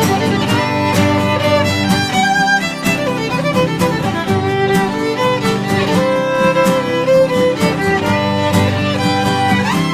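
Instrumental break in a live folk song: a fiddle plays a sliding melody over two acoustic guitars strumming.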